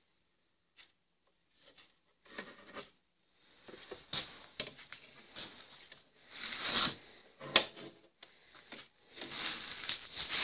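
Handling noise: hands rubbing and shifting against a car part's metal housing and lever linkage, with one sharp click just past the middle and louder rubbing near the end.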